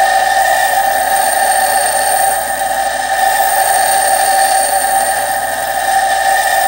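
Bench grinder running with a steady whine while a high-speed steel twist drill is ground against its wheel to sharpen the cutting edge.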